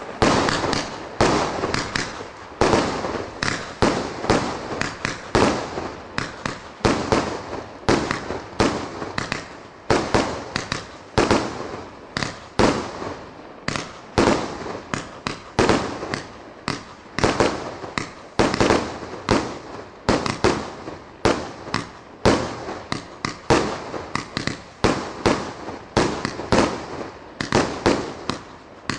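A 100-shot, 1.2-inch consumer fireworks cake firing shot after shot: a rapid, unbroken run of sharp bangs, about two to three a second, each fading quickly before the next.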